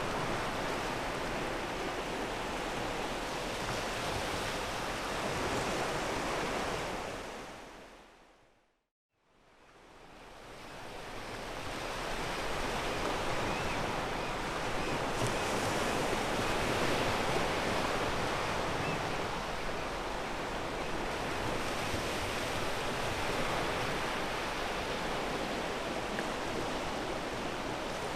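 Ocean surf washing on a pebble beach, a steady rushing wash of water. About eight seconds in it fades out to a moment of silence, then fades back in over the next few seconds.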